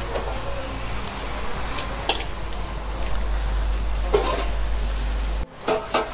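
Open-air restaurant ambience: a steady low rumble with faint distant voices and an occasional clink of serving dishes. The sound cuts off abruptly near the end, followed by a brief voice.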